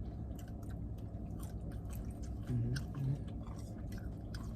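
Close-up chewing of chicken wings: wet mouth clicks and smacks scattered throughout, over a steady low rumble in the truck cabin. Two short hummed sounds come about two and a half and three seconds in.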